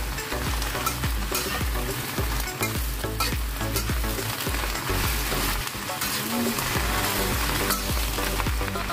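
Napa cabbage and dried shrimp sizzling in a hot wok while a metal spatula stirs and turns them, with frequent short scrapes and taps of the spatula against the pan.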